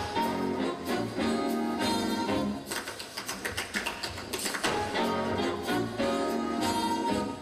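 Live big band playing jazz, with two held brass phrases and a lighter stretch between them near the middle. Through it comes the quick clicking of tap shoes on a wooden stage floor.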